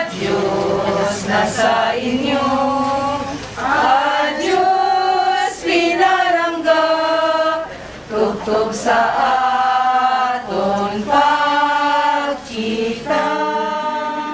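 A group of mourners singing a hymn together: slow, with long held notes and short breaks between phrases.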